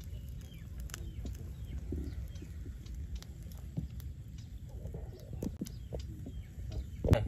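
Outdoor ambience: a steady low rumble with scattered small clicks and a few faint bird chirps, and one short, louder sound near the end.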